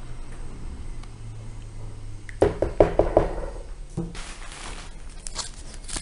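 Handling sounds: a quick run of knocks and clicks about two and a half seconds in, a single knock at about four seconds followed by a short hiss, and a few more clicks near the end.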